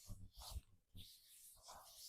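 Faint hands rubbing and pressing on a back in a massage: soft rustling of skin and cloth with a few low thuds in the first second.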